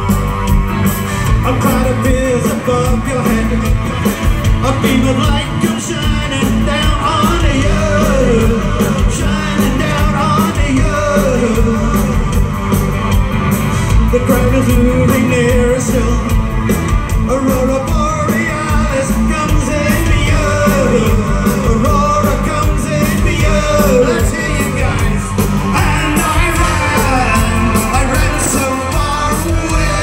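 Live rock band through a loud PA: a male voice singing over synth keyboard, electric guitar and drums.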